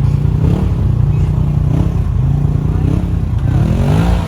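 Side-by-side UTV engine running hard, its pitch rising and falling with the throttle, with a quick climb in revs near the end.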